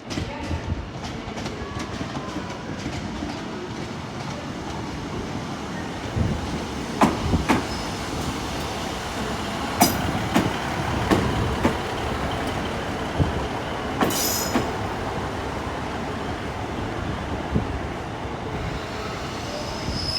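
A diesel multiple unit creeping slowly into the platform to attach to another unit, with a steady rolling rumble and wheels clicking over the rail joints. Several sharp metallic clanks come through, the loudest about fourteen seconds in.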